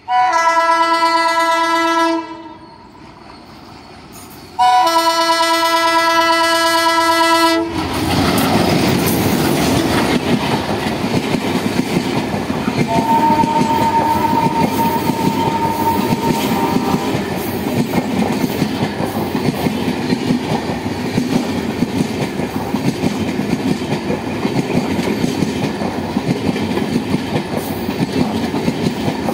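WDG-3A ALCO diesel locomotive sounding its chime horn in two long blasts. Then the express passes at speed without stopping, with the coaches' wheels clattering steadily over the rail joints.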